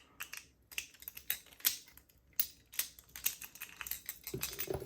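Irregular metallic clicks and clacks from a Squire 660 lever padlock and its key being handled, several light ticks a second with a few louder knocks.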